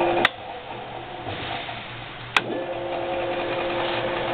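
A VECTRAX 20-inch drill press's 2 hp three-phase motor. A switch clicks and its steady whine cuts out, then about two seconds later a second click sets it running again at a steady whine. The spindle is being switched from reverse to forward low.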